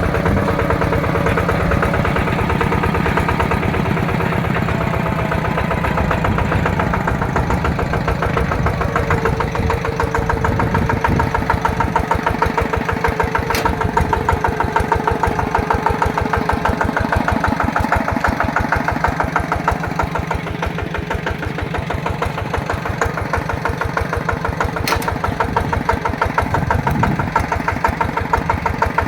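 Yanmar TF-series single-cylinder diesel engine of a two-wheel walking tractor running steadily with a rapid, even chug.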